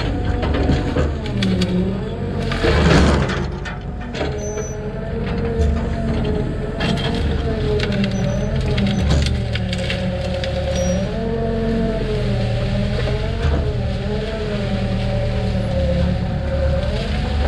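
Mini excavator's diesel engine and hydraulics running under load, the hum dipping and recovering in pitch again and again as the boom works. Brush and branches crackle and snap as the bucket shoves them into a pit, with a louder rush of crunching about three seconds in.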